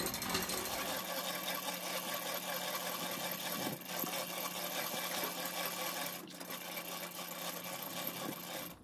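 Electric slipway winch motor running steadily while it winds in the rope that hauls an aluminium boat toward its slip trolley. The motor stops right at the end.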